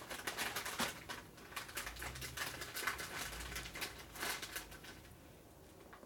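A quick, uneven run of light clicks and rattles from hand tools and small metal parts being handled, dying away about five seconds in.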